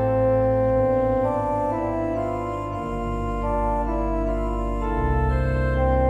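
Organ playing a slow, legato piece: sustained chords on the manuals over held pedal bass notes, the bass moving to new notes about three seconds in and again near five seconds.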